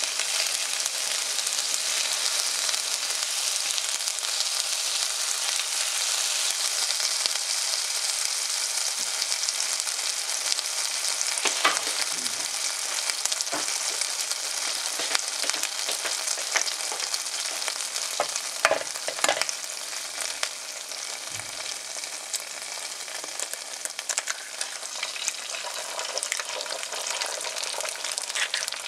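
Chopped garlic sizzling in hot oil in an aluminium pan, stirred and scraped with a wooden spatula, with a few sharp knocks of the spatula partway through.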